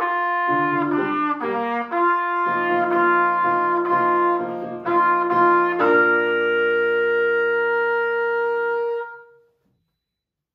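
Live instrumental music: the closing bars of a piece played on sustained-tone instruments, ending on a long held final chord that begins about six seconds in and fades out about three seconds later.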